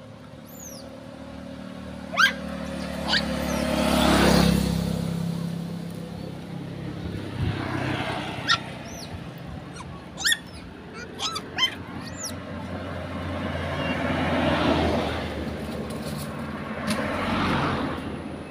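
Vehicles passing on the road, each swelling up and fading away, about four times. Short, high squeals from long-tailed macaques cut in now and then.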